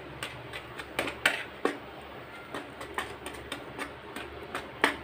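Wire whisk stirring dry gram flour and rice flour in a plastic bowl, its wires tapping the bowl in an irregular run of light clicks, about three a second.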